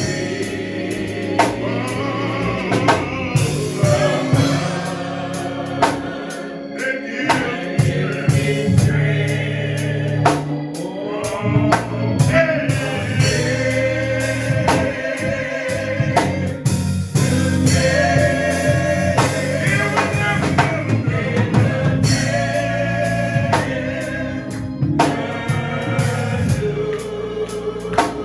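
Gospel choir singing with a live band, drums striking throughout.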